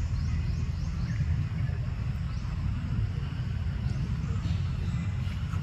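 Steady, choppy low rumble of wind buffeting the microphone, with a few faint, quick high chirps, mostly in the first second or so.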